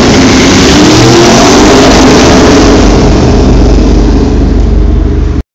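Ducati 749's L-twin engine with an open Termignoni 54 mm exhaust passing by in a tunnel, very loud and echoing. Its pitch glides as it goes by, the high end fades away while the deep low exhaust tones hang on, then the sound cuts off suddenly near the end.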